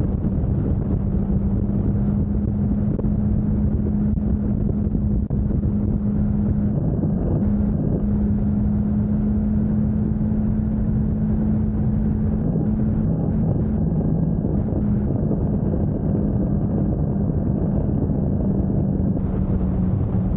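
Motorcycle cruising at highway speed: a steady engine drone with one held low tone under heavy wind noise on the microphone.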